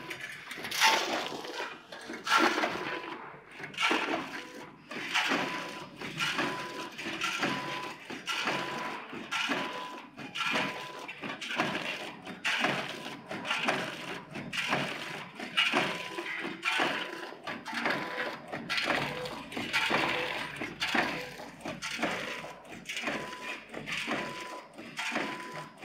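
Vertical chain-bucket form-fill-seal packing machine running, with a steady rhythm of metallic clacks and clatter from its cycle, somewhat under two strokes a second. A short high beep repeats alongside through parts of it.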